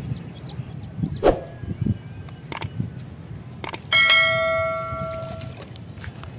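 A metal bell struck once about four seconds in, ringing with several overlapping tones that fade away over about a second and a half. A few sharp clicks come before it.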